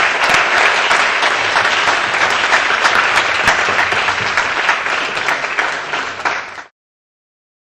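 Audience applauding, many hands clapping in a dense steady patter that cuts off suddenly near the end.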